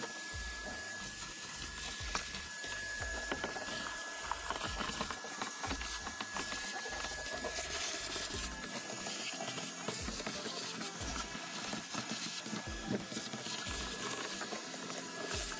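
Shop vacuum running steadily with a constant whine, its hose sucking dirt and grit off a pickup cab's floor, with frequent small clicks and rattles of debris going up the hose.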